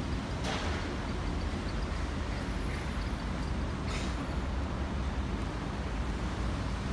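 City street traffic noise: a steady rumble of passing road traffic, with two brief sharp sounds, about half a second in and about four seconds in.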